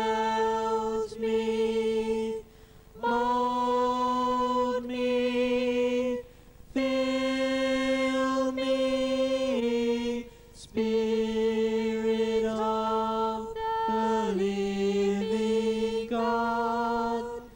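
Church congregation singing a slow worship song in long held notes, with short pauses for breath between phrases.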